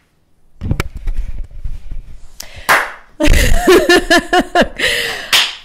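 Handling noise on a handheld microphone, rubbing with sharp knocks, then about three seconds in a person's voice in a quick run of short pitched bursts, the loudest part, with a sharp burst of noise near the end.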